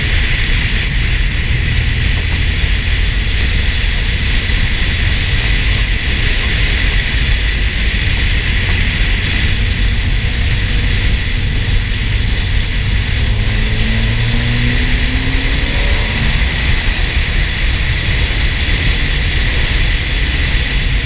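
Porsche 968's four-cylinder engine running under way, mostly buried in heavy wind rush on an exterior hood-mounted camera, with the engine note rising briefly about two-thirds of the way through as the car accelerates.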